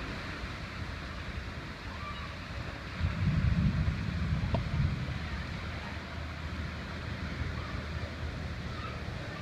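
Wind buffeting the microphone as a low rumble over a steady hiss, with a stronger gust about three seconds in.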